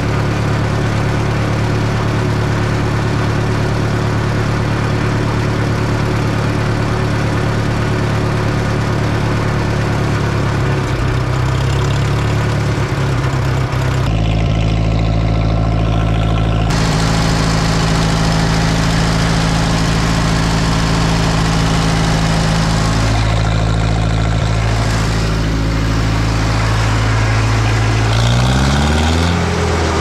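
John Deere 1010 crawler bulldozer's gasoline engine running steadily while its carburetor is adjusted to stop it surging. Its pitch shifts around ten seconds in and rises as it revs up near the end.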